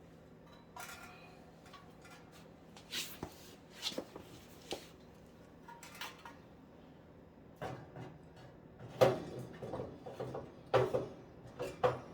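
Scattered metal clinks and knocks of parts and tools being handled on a Kenmore dryer during a repair. They come more often and louder in the last few seconds.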